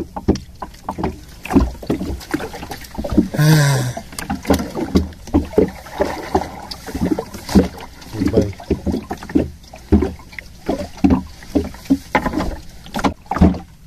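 Irregular knocks and clatter aboard a small open fishing boat, with a short shout about three and a half seconds in.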